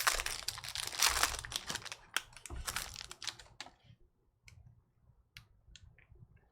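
Trading-card pack wrapper crinkling and tearing as a pack is ripped open and handled for about three and a half seconds, followed by a few scattered light ticks as the cards are handled.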